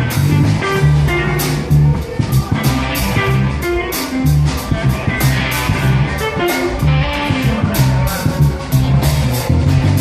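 Live blues-rock band playing loud: electric guitar over bass and a drum kit with regular cymbal hits.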